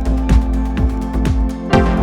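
Background electronic music with a steady beat: a kick drum about twice a second over held synth notes and cymbal strokes.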